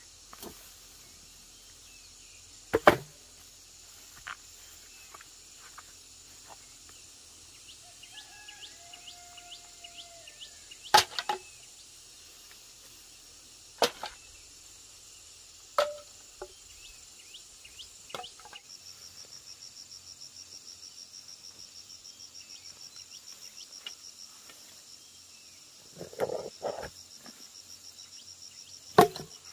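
Sharp, loud knocks, about half a dozen spread over the stretch with a few seconds between them, some coming in quick pairs, like wood being struck or chopped. Insects chirp steadily underneath, becoming a fast pulsing trill in the second half.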